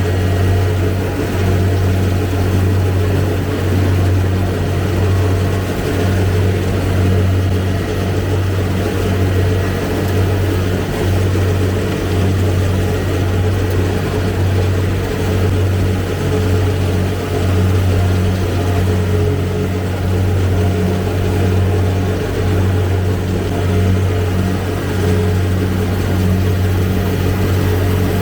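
Kubota DC-70 combine harvester's diesel engine running steadily as the machine works through the rice field, a loud continuous drone with small swells in level.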